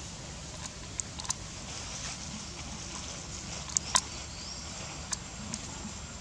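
Outdoor forest ambience with a steady low hiss, broken by a handful of sharp crackles and snaps like dry leaf litter and twigs underfoot, the loudest pair just before the middle. A brief rising high whistle sounds just after them.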